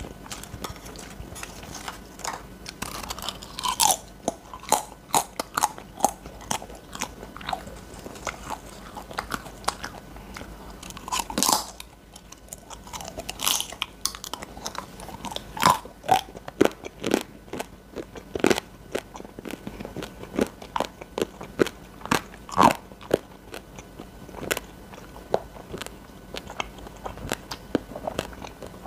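A person biting and chewing grilled beef large intestine (daechang): a string of sharp, crackly mouth clicks and crunches with short pauses between them.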